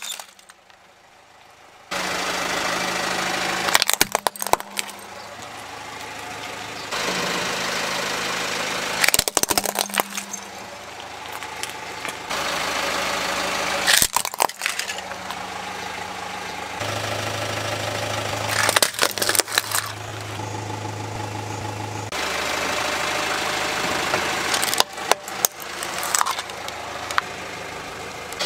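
A car's engine running at low speed as its tyre rolls over plastic toy vehicles, with sharp cracks and crunches of the plastic breaking about every five seconds, several times over.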